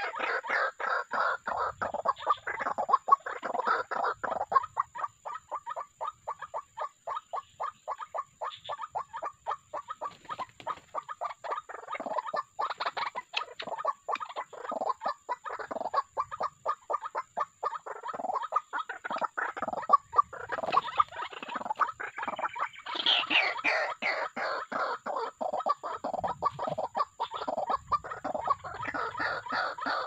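White-breasted waterhens calling: a long, fast run of repeated clucking, croaking notes, with a louder, higher-pitched flurry about three-quarters of the way through.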